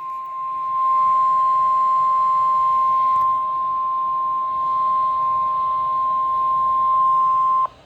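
NOAA Weather Radio warning alarm tone, a single steady 1050 Hz tone played through a Midland WR120 weather radio's speaker. It cuts off sharply near the end, the signal that a warning message follows.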